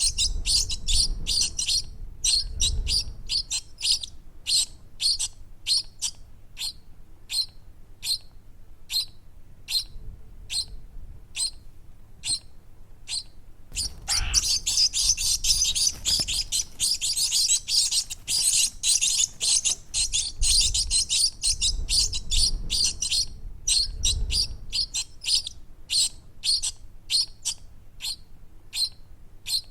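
Baby birds chirping: rapid, short, high-pitched cheeps repeating throughout, sparser in places and thickest near the middle, where several seem to call at once.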